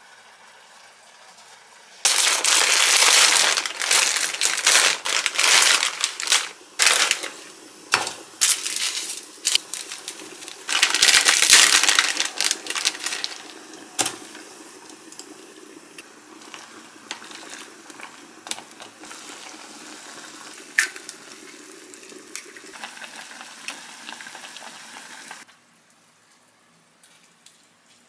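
Plastic food packaging rustling and crinkling, full of sharp clicks, as noodle and sauce packets are handled and torn open, loudest in two stretches. A quieter steady hiss follows and stops suddenly near the end.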